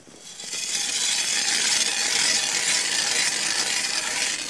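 Hand ice auger being turned as it bores down through snow into the ice, its spiral blade giving a steady scraping, grinding hiss that starts about half a second in.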